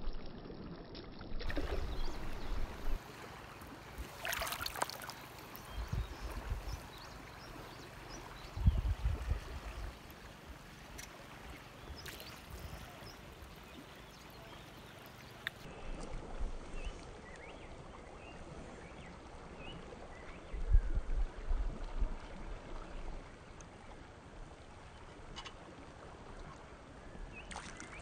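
Shallow river water running over rocks, with low rumbling bumps now and then.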